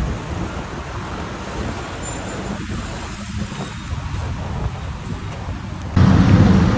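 Road traffic from the busy road below: a steady rumble of passing vehicles. About six seconds in it jumps suddenly louder.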